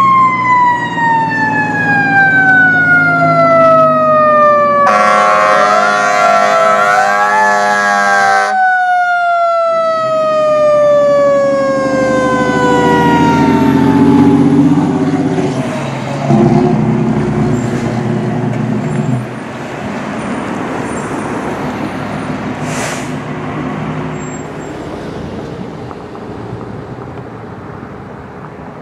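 Fire truck's siren winding slowly down in pitch, cut across by an air horn blast lasting about three seconds. Then the truck's diesel engine rumbles loudly past and fades away down the road.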